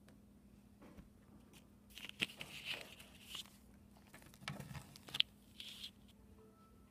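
Handling noises: rustling and scraping with a few sharp clicks, coming and going from about two to six seconds in, as the phone and the specimens on the paper are moved about.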